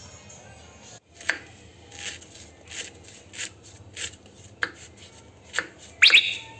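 Kitchen knife slicing a lemongrass stalk into thin rounds on a thick wooden chopping block. The crisp cuts start about a second in and come about one every two-thirds of a second, the loudest near the end.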